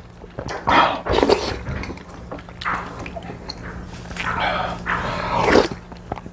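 Close-up eating sounds at the table, in several short bursts.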